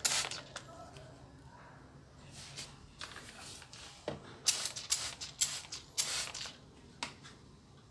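Hand-held plastic spray bottle pumped in a series of short hissing squirts, about ten of them, most packed together from about four to seven seconds in, misting a ficus bonsai's leaves and soil.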